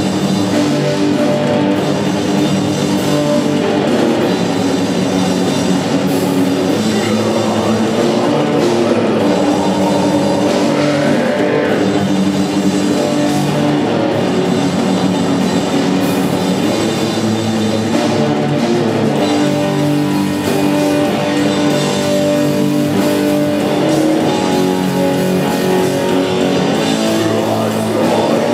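A rock band playing live and loud, with electric guitars and a drum kit.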